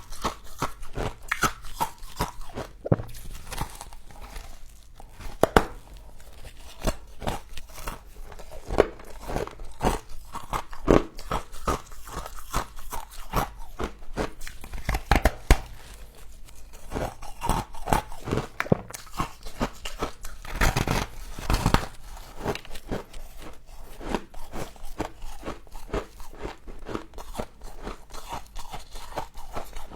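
Close-up crunching and chewing of frost: a person biting into and eating mouthfuls of frost, with a dense run of sharp crackling crunches.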